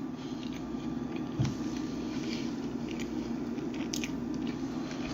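A person chewing food close to the microphone, with faint crunches and small mouth clicks.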